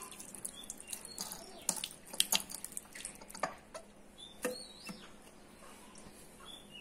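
Tap water splashing and dripping over hands being rinsed in a ceramic washbasin, with many sharp splashes. It grows quieter about halfway through as the rinsing ends.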